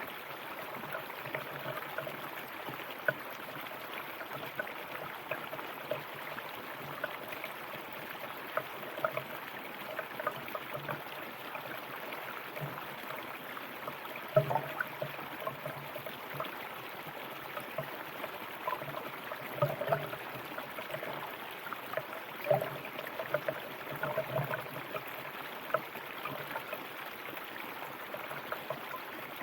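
River water running steadily over stones, with frequent small splashes and gurgles and a few louder ones scattered through.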